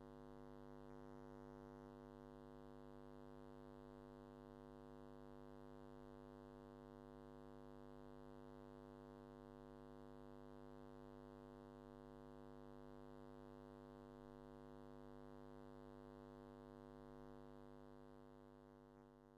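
Near silence with a faint steady electrical mains hum, a buzz with many evenly spaced overtones, fading away near the end.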